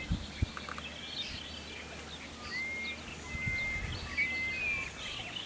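Birds calling: a long, flat whistled note, repeated several times, among shorter, higher chirps. Two brief low thumps sound near the start.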